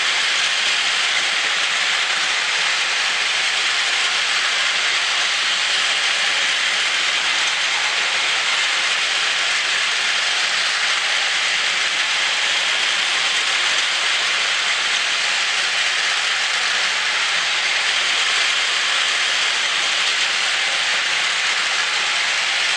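Two battery-powered Plarail toy trains, an E5 Hayabusa and an E6 Komachi set, running together on plastic track. Their small motors and wheels on the plastic rails make a steady, even noise.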